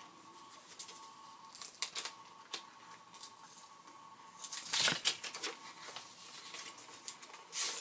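Paper envelope being opened by hand and a card slid out: scattered rustling and tearing of paper, with a louder burst of crinkling about two-thirds of the way through.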